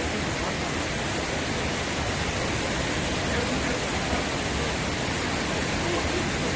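Steady, even rush of a mountain valley stream's flowing water.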